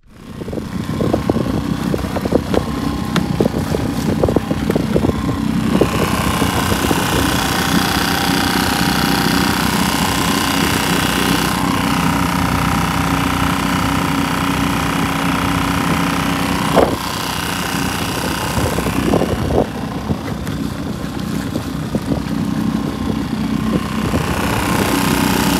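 A motor vehicle engine running steadily, with wind noise over the microphone, and a single sharp knock about 17 seconds in.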